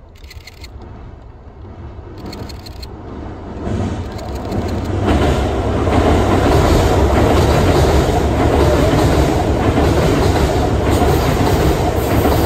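Kintetsu 50000 series Shimakaze express train passing over a steel railway bridge. The rumble of its wheels on the rails grows over the first few seconds, then holds loud and steady as the cars go by.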